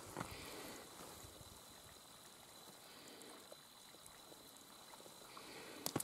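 Faint, even trickle of a snowmelt rivulet, with a small click just after the start and another near the end.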